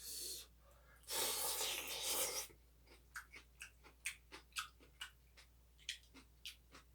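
A person slurping hot soup in a long, noisy draw about a second in, then chewing with wet mouth clicks and smacks, about two a second.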